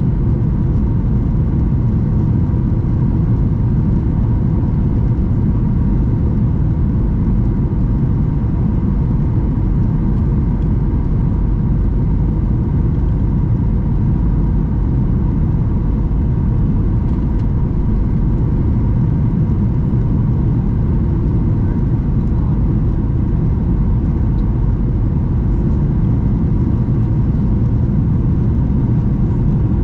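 Steady low rumble inside the cabin of a Boeing 737-800: its CFM56-7B engines and the airframe running, with a faint steady whine above the rumble.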